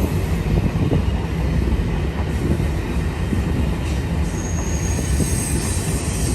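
Freight train cars rolling past: a steady rumble of steel wheels on the rails, with a faint high wheel squeal in the second half.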